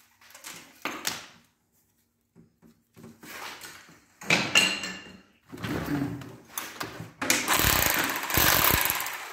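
Ceramic wall tiles being pried and pulled off by hand, the tile and its adhesive scraping and cracking away from the wall in several irregular bursts. The longest and loudest scrape comes near the end.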